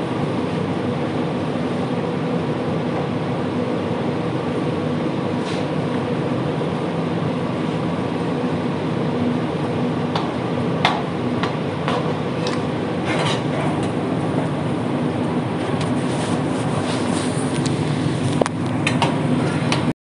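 Steady drone of commercial kitchen equipment, with a few clinks and knocks in the second half.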